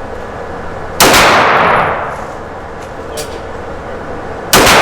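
Two pistol shots about three and a half seconds apart, each followed by a long echoing ring off the range walls.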